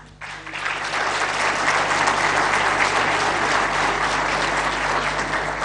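A large hall audience applauding, many hands clapping at once; the applause starts just after the start and fades away near the end.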